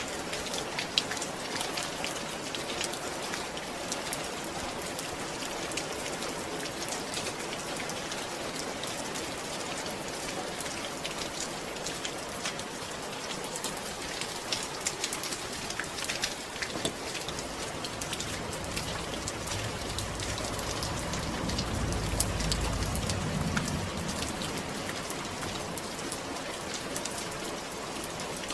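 Steady rain falling, with many separate drops pattering on a surface. A low rumble swells and fades about two-thirds of the way through.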